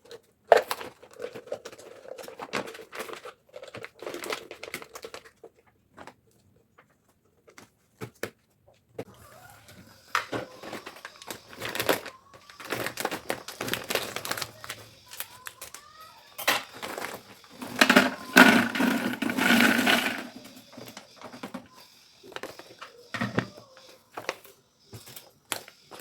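Packaging being handled: crinkling and rustling with scattered clicks and taps, heaviest in a long stretch past the middle.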